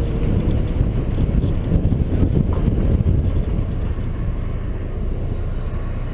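1994 Mazda Miata's 1.8-litre four-cylinder engine running as the car moves, a low rough rumble with wind on the microphone. The engine has a misfire that the owner puts down to the fuel rail.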